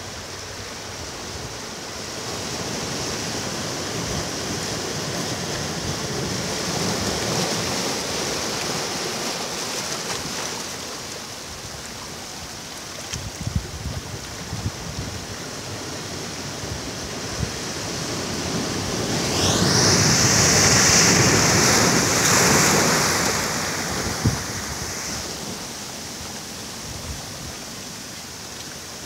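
Ocean surf on a beach: a steady wash of waves that swells and fades, with one larger wave breaking and rushing in about two-thirds of the way through.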